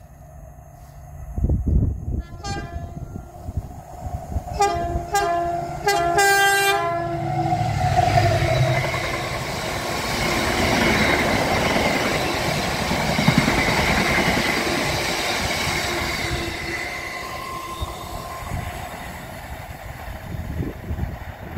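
Class 70 diesel locomotive sounding its horn as it approaches: one short blast, then a quick run of several blasts ending in a longer one. Then the locomotive and its rake of empty cement tank wagons pass close by, with loud wheel and wagon noise that fades away near the end.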